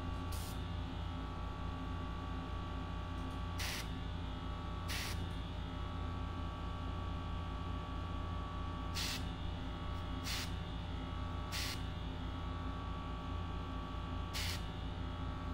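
A small airbrush compressor runs with a steady hum. A gravity-feed airbrush gives about seven short hisses as its trigger is pressed in brief bursts, spraying black paint onto a fishing lure's eyes.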